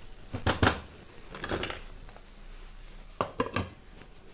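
A wooden spatula knocking against a non-stick frying pan a few times, then a glass lid set down on the pan with a couple of clinks about three seconds in.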